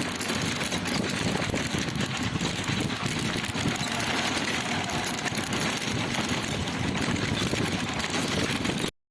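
A small engine running steadily with a rattly drone. The sound cuts out briefly near the end.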